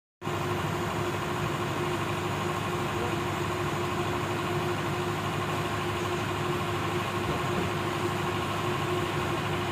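Steady machine hum with a few constant tones running over an even background noise.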